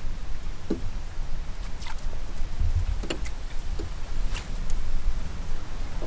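Wind buffeting the microphone, a steady low rumble, with a few scattered faint ticks and small splashes over it.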